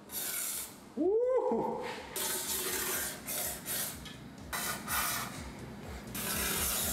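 Aerosol can of 3M cavity wax spraying through a long extension wand into a frame rail, in a series of short hissing bursts, coating the inside against rust. A brief squeak that rises and falls in pitch comes about a second in.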